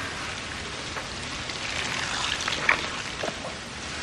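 Steady rain falling, an even hiss with a few faint drips or taps.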